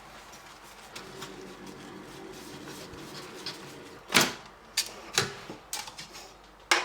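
Plastic fridge trays being handled: a faint steady hum, then a handful of sharp knocks and clatters starting about four seconds in.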